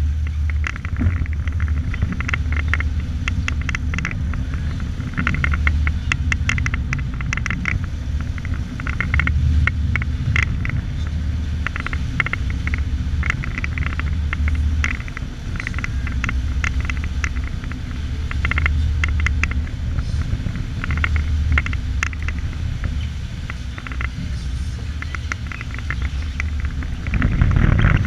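Boat engine running steadily with a strong low rumble, with irregular clicks and crackles on top.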